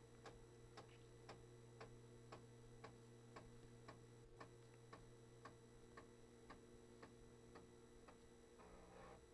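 Commodore 1571 floppy disk drive formatting a disk: faint regular clicks about twice a second as the read/write head steps from track to track, over the low steady hum of the spinning drive.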